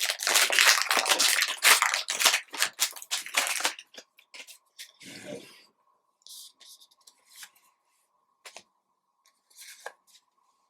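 Trading-card pack wrapper being torn and crinkled open, a loud continuous crackling that stops about four seconds in. After it come soft rustles and a few light clicks as the cards are handled.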